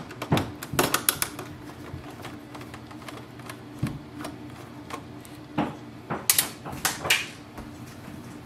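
Irregular sharp clicks and taps of small screws and plastic printer parts being handled during disassembly, some in quick clusters, over a faint steady hum.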